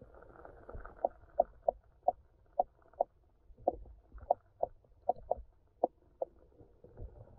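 Underwater sound from a camera held in a shallow stream: a muffled low rumble of moving water with a string of short, sharp clicks at irregular spacing, about two a second.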